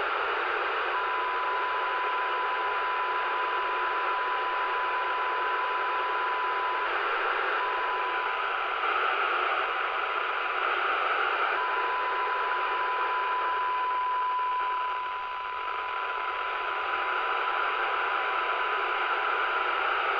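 Kenwood TK-7020 radio's speaker giving steady receiver hiss, with a steady single-pitch tone that sounds for several seconds, drops out, and comes back twice.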